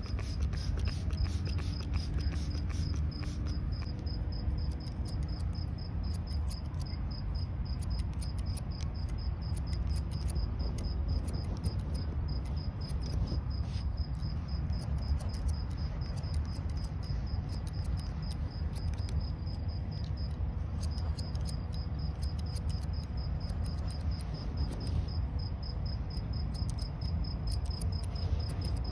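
Barber's scissors snipping through hair in quick irregular runs of sharp little clicks, while a cricket chirps steadily at a high pitch, several chirps a second, stopping briefly about two-thirds of the way through. A steady low rumble lies underneath.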